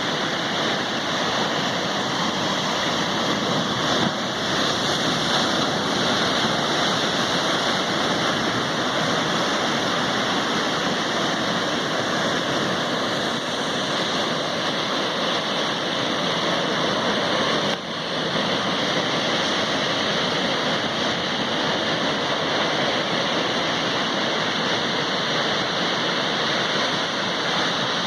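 Sea waves rushing steadily, a continuous even roar of water without separate wave breaks standing out.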